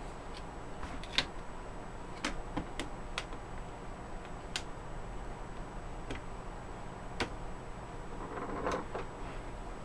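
Plastic snap clips of a Compaq CQ62 laptop's LCD bezel popping loose as the thin bezel is pried off the screen lid: irregular sharp clicks, the loudest about a second in.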